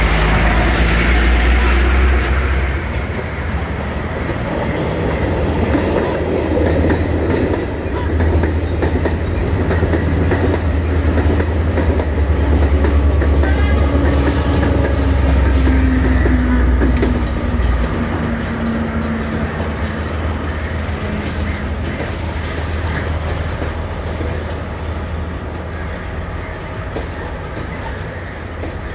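A diesel passenger train passing close by, its diesel engine droning and its wheels running on the rails. Just past the middle the engine note drops as the power car goes by, and the sound gradually fades as the coaches roll past.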